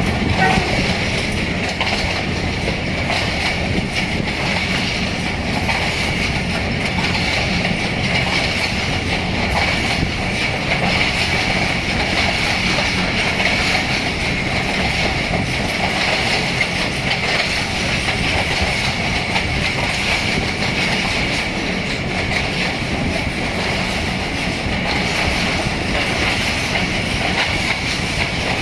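Passenger train running along the track: a steady rumble with the clickety-clack of wheels over rail joints and a continuous high hiss. The tail of the ZCU 20 diesel locomotive's horn cuts off right at the start.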